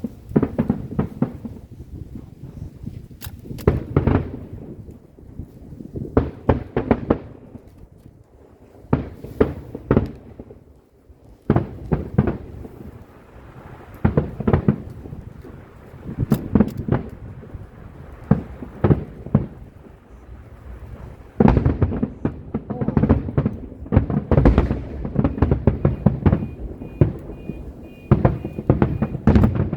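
Aerial fireworks going off: a series of sharp booms and cracks with rumbling echoes, coming in clusters with short lulls, then a denser barrage of bursts over the last third.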